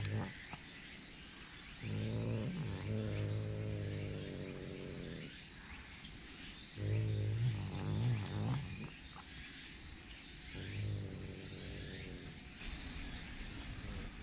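Tsushima leopard cat growling low over meat held in feeding tongs. There are three growls: a long one starting about two seconds in, another around seven seconds, and a short one near eleven seconds.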